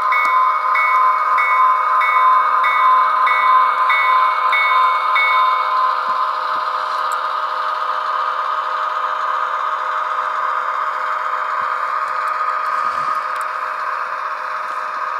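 Sound-equipped Atlas GP38-2 model locomotive playing a diesel engine running sound through its small speaker, with no bass. The locomotive bell rings about three times a second until about six seconds in, then stops.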